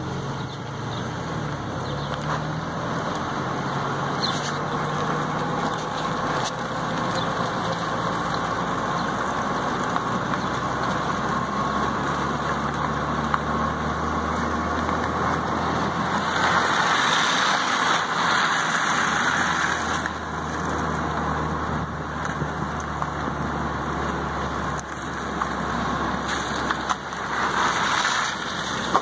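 Road noise from a car being flat-towed on a tow bar behind a pickup truck: tyre and wind rush over the low running of the pickup's four-cylinder engine. The rush swells louder about two-thirds of the way through and again near the end.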